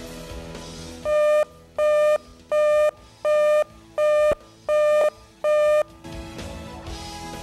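Seven evenly spaced electronic alert beeps, each a short steady tone about 0.7 s after the last, played over quiet background music. This is the cable weather channel's warning tone, sounding as a flash flood warning crawl begins.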